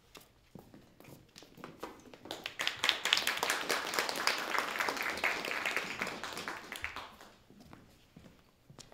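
Audience applause, starting a couple of seconds in with a few scattered claps, swelling into a dense patter and dying away about seven seconds in.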